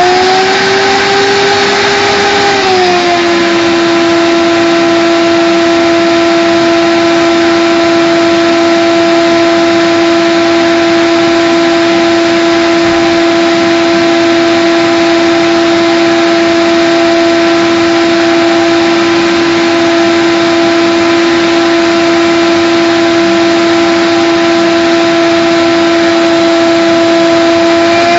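Vacuum cleaner motor running with a steady whine over a rush of air, vacuuming the car's interior. Its pitch rises slightly at the start and drops back about three seconds in, as the suction load changes.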